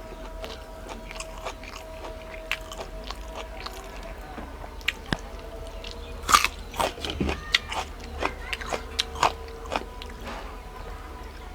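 Close-miked eating: mouth sounds of chewing and biting food, with crisp crunches and wet clicks. A loud crunch comes about six seconds in, followed by a quick run of crunchy bites.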